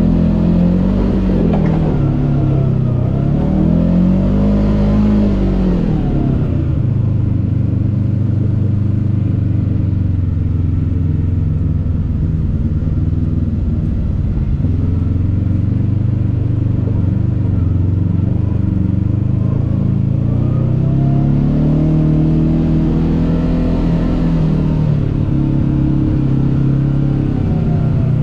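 Kawasaki KRX 1000 side-by-side's parallel-twin engine heard from on board. Its revs rise and fall over the first several seconds, hold steady and low through the middle, then rise and fall again near the end.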